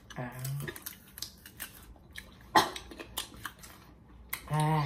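People biting and chewing small green crab apples: scattered crunchy clicks, with one loud sharp crunch a bit over halfway through. Short hummed 'mm' sounds from the eaters come near the start and again, louder, near the end.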